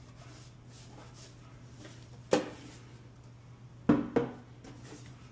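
Ubiquiti UniFi USW-Pro-Aggregation switch's metal chassis being handled and knocked against a table: one knock about two seconds in, then two quick knocks close together near four seconds as it is set down on its edge. Light handling rustle comes between the knocks.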